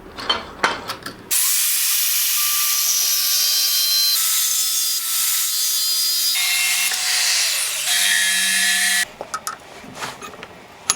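Power grinder cutting and grinding the hardened steel of an old file: a loud, hissing grind with a steady whine that starts about a second in and cuts off abruptly near nine seconds. Its pitch shifts suddenly a few times. Light clicks and knocks of handling come before and after.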